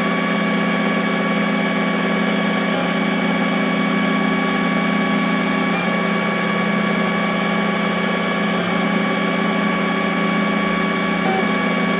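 XYZ da Vinci Mini W+ 3D printer's stepper motors whining steadily while printing, a held tone with a brief break in it about every three seconds.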